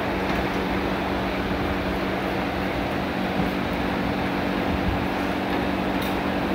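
Steady machine hum with a rushing, air-like noise and two constant low tones. A couple of faint light ticks near the end.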